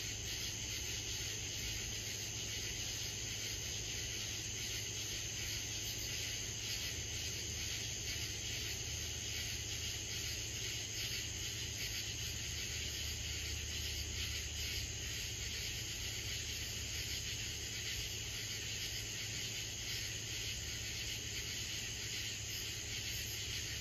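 Summer insect chorus: a steady high-pitched trilling with a faster rhythmic pulsing layer above it.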